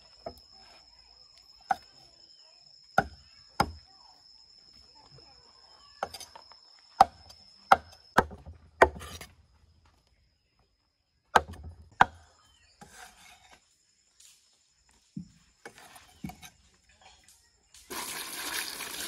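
A knife chopping loaches on a thick wooden chopping block: about a dozen sharp, irregular chops, then a few lighter knocks. About a second before the end, a stream of running water starts pouring over the loach pieces as they are rinsed in a woven basket.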